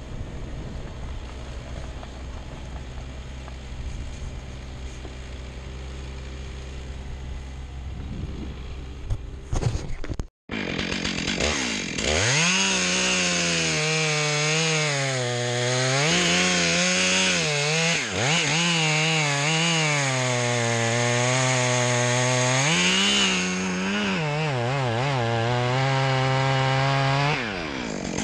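Stihl chainsaw idling low, then, after a short cut-out, run up to full throttle and cutting into a large tree trunk, its pitch dipping and recovering again and again as the chain bites into the wood. Near the end the engine drops off to a lower speed.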